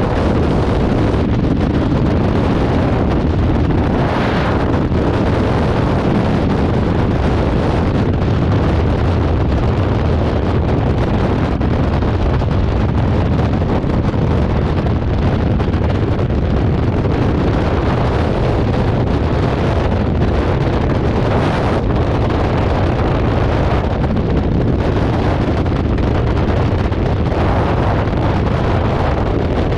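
Steady, loud rush of freefall wind buffeting the camera microphone during a skydive.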